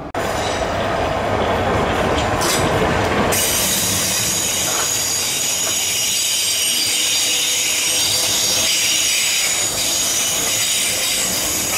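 Train moving through the station, with a loud, high-pitched metallic squeal from its wheels on the rails setting in about three seconds in and holding.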